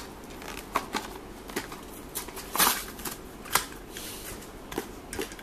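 Plastic blister and cardboard backing of a Hot Wheels car pack being handled and pulled open: irregular crinkles and clicks, loudest a little past halfway.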